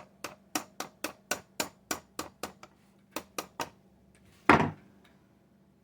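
Quick, light tool taps, about four a second, on a rod being driven through its hole in a Johnson Model D fare box's tower, then one louder, heavier knock. The rod is stuck and the tapping is not moving it.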